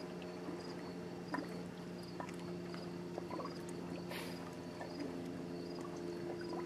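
Lakeside evening ambience: a steady low drone of a distant motorboat engine, with insects chirping at a steady pace and small ticks of water lapping. A short hiss about four seconds in.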